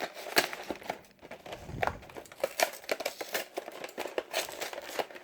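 Cardboard-and-plastic trading-card tripack box being pried open and torn from underneath by hand: irregular crinkling and crackling of the packaging.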